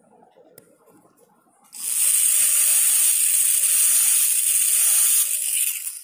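Dental handpiece with a burr running and cutting a typodont premolar to break through its distal proximal contact: a loud steady hiss with a faint steady hum beneath, starting about two seconds in and stopping just before the end.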